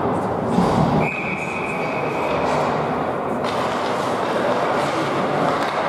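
Ice hockey rink noise: a steady wash of skates on ice and crowd murmur. About a second in, a single high steady tone sounds for roughly two and a half seconds, then stops.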